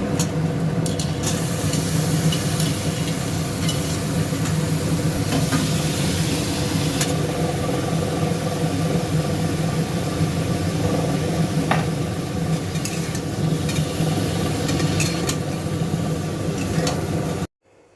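Mixed vegetables sizzling in hot oil in a pot while being stirred with a spatula, with scattered scraping clicks over a steady hum. The sound cuts off suddenly near the end.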